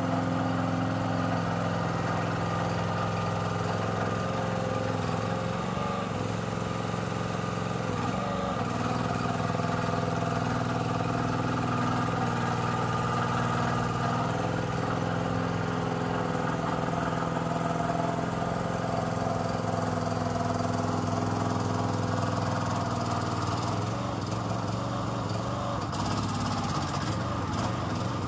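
Engine of a FORT Alien HY 5.2 tracked mini dumper running steadily while it is driven over muddy ground, its pitch shifting a little now and then.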